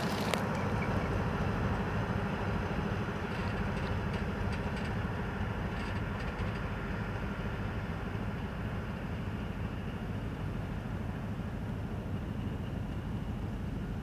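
SM42 diesel shunting locomotive running, a low pulsing engine rumble that slowly grows fainter as the locomotive moves away along the track. A few light clicks come between about three and six seconds in.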